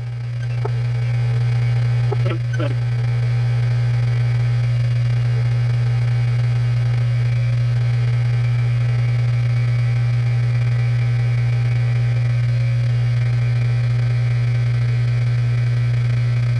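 Metal lathe running at slow speed with a steady low hum while a parting tool cuts through a rifle barrel.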